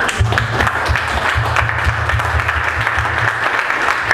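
Crowd applauding, with a low bass line from background music pulsing underneath.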